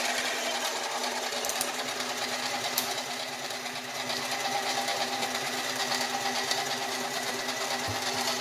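Small metal lathe running steadily, spinning a Nema 23 stepper motor that is being used as a generator; a steady machine whine with a hum, dipping slightly in level about three seconds in.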